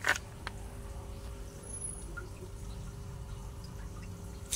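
A sharp click at the start and a smaller one about half a second later, then a faint click near the end, over a low steady background rumble with a faint hum.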